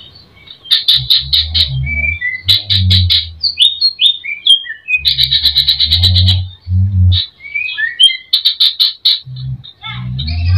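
Greater green leafbird (cucak ijo) singing a varied song full of mimicked fills: fast trains of high chips, short falling whistles and a longer rapid trill about halfway, separated by brief pauses. A low hum sits under the phrases.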